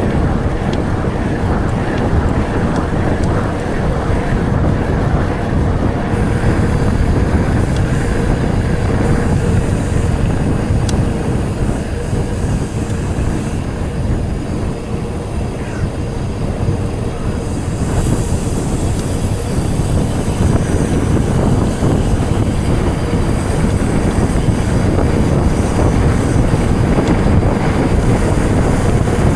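Mountain bike riding at speed: a steady rush of wind on the microphone over the rumble of the tyres, with no pauses or clear knocks.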